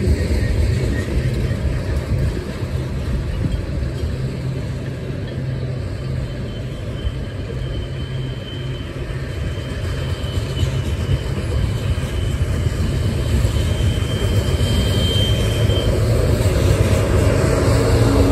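Freight train rolling past on the rails: a steady rumble and clatter of tank cars and covered hoppers going by, with a thin high whine holding for several seconds in the middle. Near the end it grows louder as a Union Pacific diesel locomotive comes alongside.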